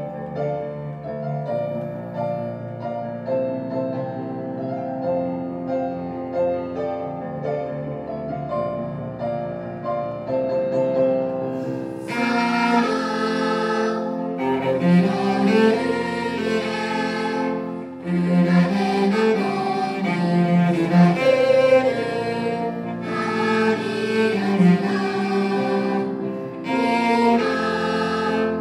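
Piano accompaniment plays an introduction of sustained chords, and about twelve seconds in a cello comes in, bowing the melody of a school song over the piano.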